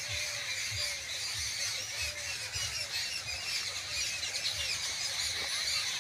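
A flock of small birds chirping continuously, many short overlapping chirps, with soft footsteps on dry ground about every two-thirds of a second.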